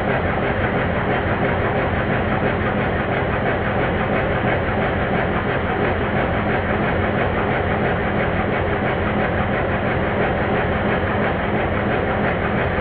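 Stuart triple expansion model steam engine, with its vacuum pump worked off the crosshead, being spun by a cordless drill: a steady, dense mechanical clatter of rods, valve gear and pump, heard slowed down. The mechanism is running smoothly, with nothing binding.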